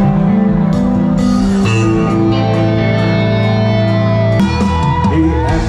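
Live band music through a concert PA: guitars hold sustained chords over the bass, changing chord about a second and a half in and again about four seconds in.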